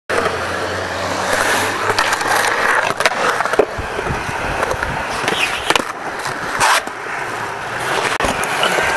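Skateboard rolling on concrete: a steady wheel rumble broken by several sharp clacks and knocks of the board.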